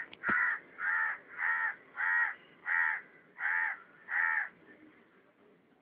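A crow cawing: a run of about seven evenly spaced caws, roughly three every two seconds, stopping about four and a half seconds in.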